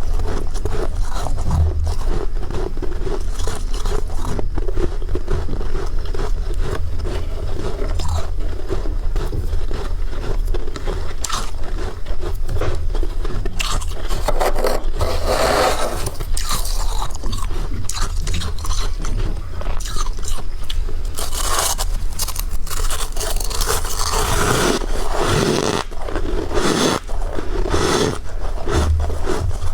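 Freezer frost being scraped and bitten close to the microphone: a continuous run of crisp, crackly crunches.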